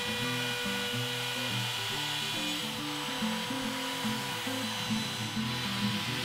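Bosch compact trim router running at a steady high whine while its chamfer bit cuts along the edge of a walnut and maple cutting board. Background music with a melodic bass line plays under it.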